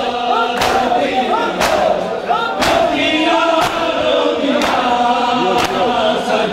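A crowd of men chanting a noha together and doing matam, beating their chests in unison. There is one loud slap about every second under the sung lament.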